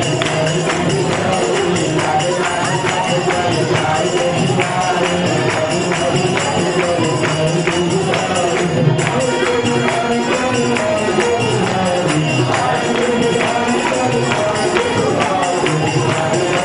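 Devotional music with a group of people clapping along in time, making a steady beat of sharp claps of about three a second under melodic voices.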